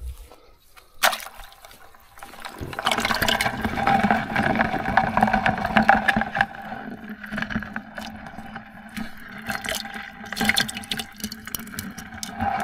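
Water splashing and gurgling in a white plastic bucket holding live yabbies, after a sharp knock about a second in; the water noise swells a couple of seconds in and carries on more softly with small clicks.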